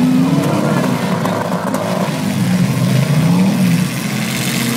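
Demolition derby cars' engines revving, the pitch rising and falling again and again.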